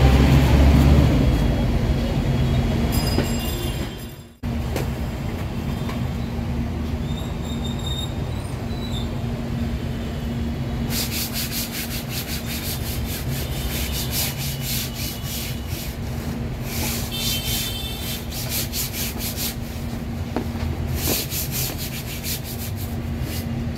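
Hands rubbing and pressing a glued fabric patch down onto a jeep's soft-top canopy, in repeated brushing strokes that come thick and fast from about halfway through, over a steady electrical hum.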